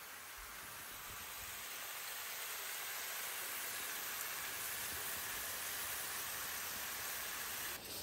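Sliced mushrooms and cauliflower sizzling in a frying pan, a steady hiss with a brief dip near the end.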